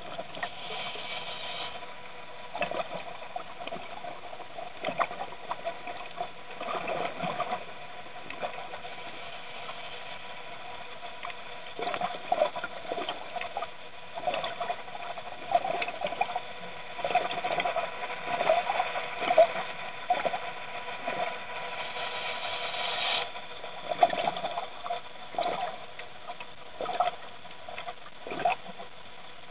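Underwater sound picked up by a camera: irregular watery patter and clicking, coming in uneven clusters, over a steady faint electronic hum.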